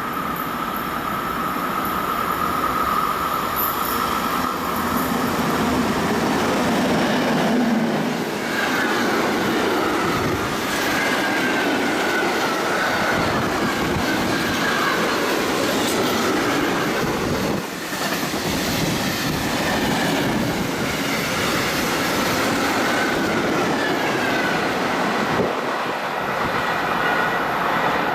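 A train running past on the line, with steady rolling noise and clatter over the rails and a high, wavering wheel squeal that sets in about a third of the way through.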